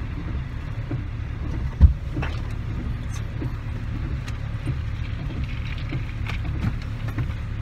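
Car engine running, a steady low rumble heard from inside the cabin, with one sharp thump a little under two seconds in.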